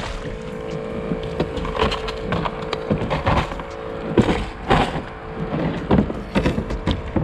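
Irregular knocks and clatters of fishing gear on a plastic kayak, coming faster and louder from about four seconds in, over a faint steady hum.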